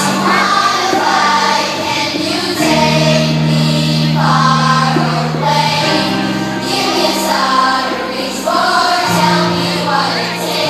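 Recorded music with singing, played for a dance routine, with long bass notes that change every two to three seconds.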